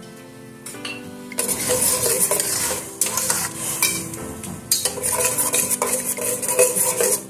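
A metal spoon stirring and scraping against a stainless steel pot, through onion, garlic and turmeric–ají amarillo paste sizzling in oil; the loud scraping starts about a second and a half in.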